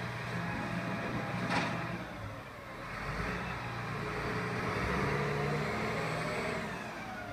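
Diesel engine of a side-loading recycling truck running as its lifting arm sets an emptied wheelie bin down, with one sharp clack about a second and a half in. The truck then pulls away, its engine rising in pitch and getting louder.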